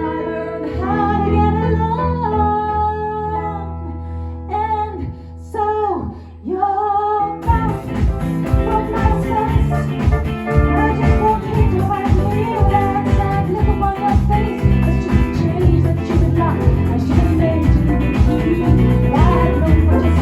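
Live band playing a song: a singer over held chords, and about seven seconds in the whole band comes in with a steady beat.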